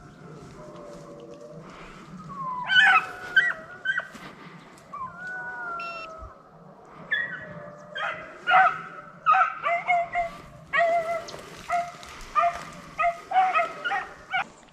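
Deer hounds giving voice on a drive: a few drawn-out bawls, then a quickening string of short, high yelping barks, running almost without pause in the second half.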